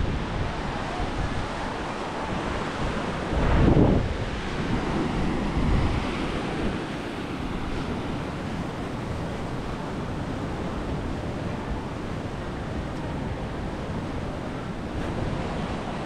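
Surf washing onto a sandy, rocky beach with wind rumbling on the microphone in gusts, loudest about four seconds in.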